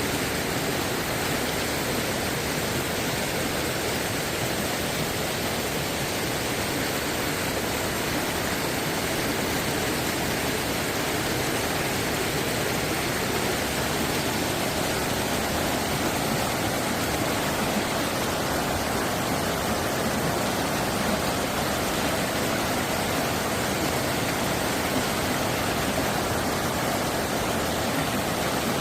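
Mountain stream flowing, a steady even rush of water with no change throughout.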